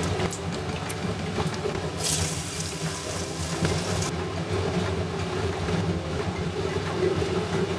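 Hot cooking oil sizzling and crackling over a steady low hum, turning brighter and hissier for about two seconds starting two seconds in.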